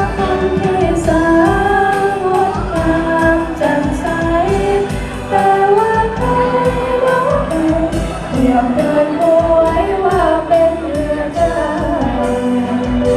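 A song: a singing voice carrying the melody over instrumental accompaniment with a steady beat.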